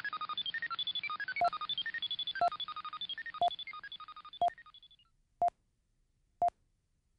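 Electronic bleeps: a fast run of short tones at shifting pitches, several a second, fading out about five seconds in. Under it a single short lower beep sounds once every second and carries on after the run has died away.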